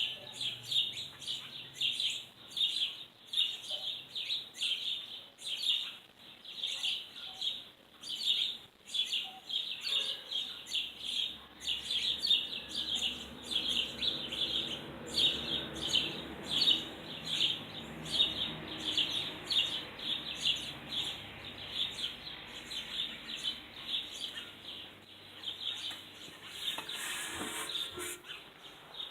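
Bird chirping in a long run of short, sharp repeated notes, about three a second.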